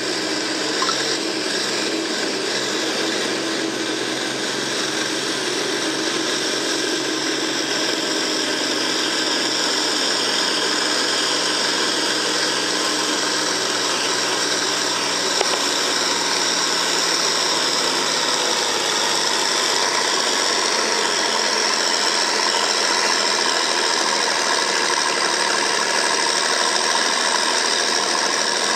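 John Deere farm tractor's diesel engine running hard under full load as it pulls a weight-transfer sled, a steady heavy drone. Its pitch sags a little in the second half as the sled's drag builds.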